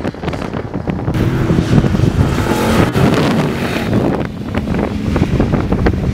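Off-road race 4x4 engines running hard as the trucks pass at speed over sand, the roar growing louder from about a second in, under heavy wind buffeting on the microphone.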